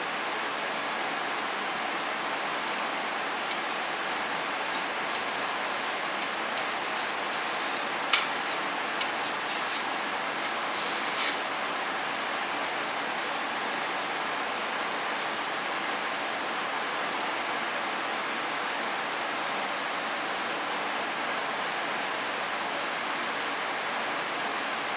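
Steady hiss throughout, with a few light clicks and rubbing scrapes in the first half and one sharp click near the middle.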